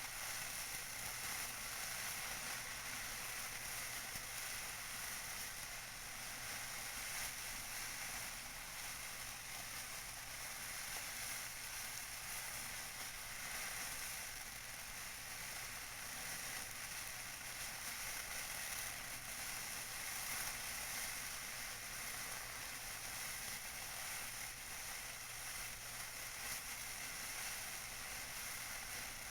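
Tissue paper being crinkled and rustled by hand, a continuous dense crinkling close to the microphone.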